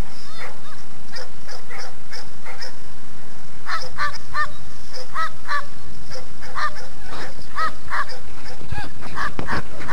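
A dog giving short, high-pitched yelping barks, sparse at first and then several a second from about four seconds in.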